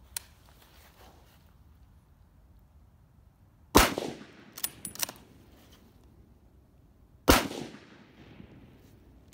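Two shots from a .30-06 bolt-action service rifle about three and a half seconds apart, each a sharp crack with a short trailing echo. Between them the bolt is worked, two metallic clacks shortly after the first shot.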